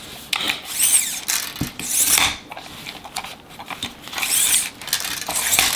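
Festool tape measure being worked by hand: the steel blade run out and retracted in several bursts of whirring, ratcheting rattle, with clicks from the plastic housing and its retract button.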